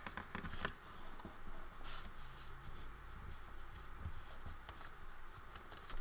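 Paper rustling and rubbing as it is folded and creased by hand, with a few light knocks and clicks of handling near the start and twice more later.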